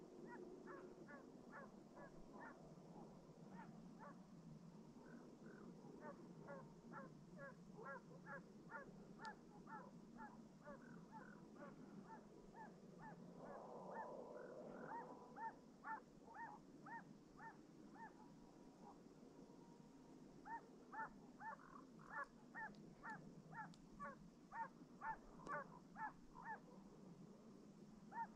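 A Russian hound baying faintly in a long run of evenly paced yelps, about two a second, easing off in the middle and then picking up again: the hound giving tongue as it runs a hare's trail.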